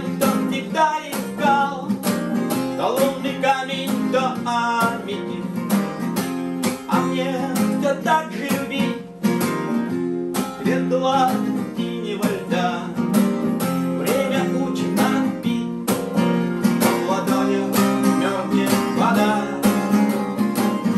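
Two acoustic guitars strummed and picked together, with a man singing in Russian.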